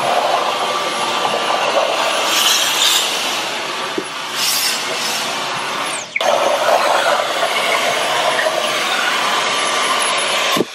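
Dyson V11 Torque cordless stick vacuum running with its soft dusting brush, a steady whir with the brush rubbing over hard furniture surfaces. The motor sound dips briefly with a short falling whine about six seconds in, then runs on.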